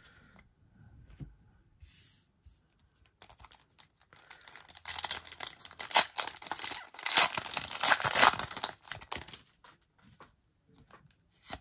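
Foil wrapper of a Pokémon TCG booster pack crinkling in the hands and then torn open, the tearing and crackling densest and loudest in the middle, with lighter crinkles before and after.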